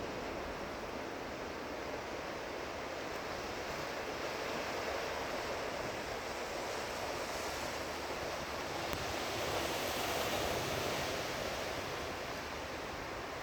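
Ocean surf: waves rushing and breaking steadily on the shore, swelling a little about ten seconds in.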